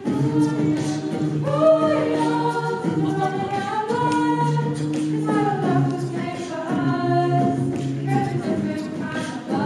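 A group of voices singing together in harmony, holding long chords that change every second or so.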